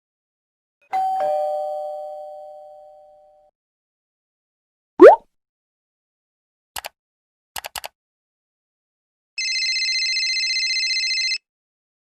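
A run of stock sound effects. A two-note ding-dong doorbell, high note then low, rings out. Then comes a quick rising cartoon pitch slide, the loudest sound here, followed by computer mouse clicks, two and then four. Last, a cellphone ringtone trills for about two seconds.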